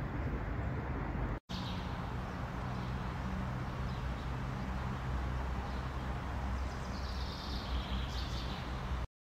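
Outdoor street ambience: a steady low rumble and hum of road traffic, dropping out briefly about a second and a half in and cutting off just before the end. A few bird chirps sound near the end.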